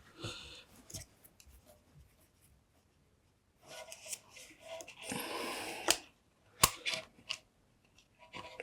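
Quiet, scattered rustles and small clicks of hands handling wires and crimp connectors, with a couple of sharp clicks about two-thirds of the way through.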